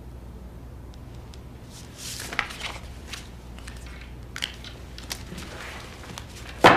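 Paper rustling and crinkling in short scattered bursts with small clicks as sheets are handled on a desk, over a low steady room hum. A loud guitar strum starts suddenly at the very end.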